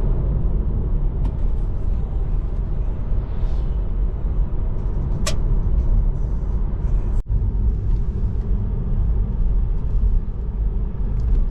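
Steady low rumble of road noise, as heard from inside a moving car. There is a brief high tone about five seconds in and a momentary dropout a little after seven seconds.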